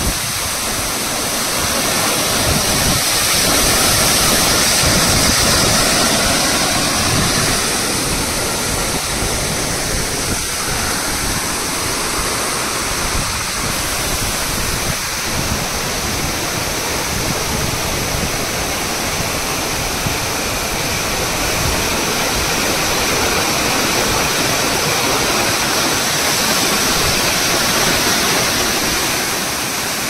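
Waterfall pouring down a rock face into a rocky stream: a loud, steady rush of falling and running water, swelling slightly a few seconds in and again near the end.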